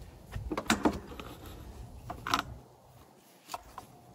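Handling noise as the filming phone is moved and repositioned: rubbing with a few light clicks and knocks, and a low rumble that drops away about two-thirds of the way through.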